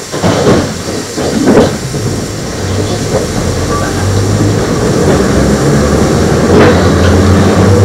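Eizan Electric Railway train with nose-suspended traction motors, heard from on board pulling away on the Iwakura–Kino section. A few knocks come in the first couple of seconds, then the motors' low hum builds and grows louder as the train gathers speed.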